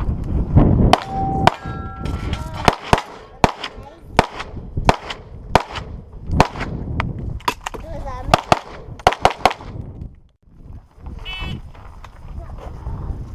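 Competition pistol shots fired one after another at a quick, uneven pace, about one to two a second, with a short pause a little after ten seconds in.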